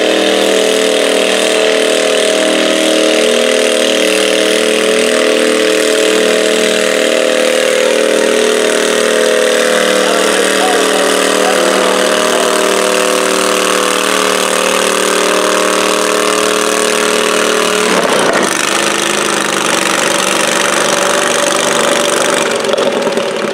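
Small garden tractor engine running hard under load as it drags a stoneboat weight sled. About 18 seconds in the engine note changes, and near the end it drops away as the pull stops.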